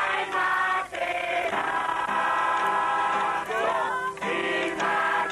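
A group of people singing together in chorus to an acoustic guitar, with long held notes.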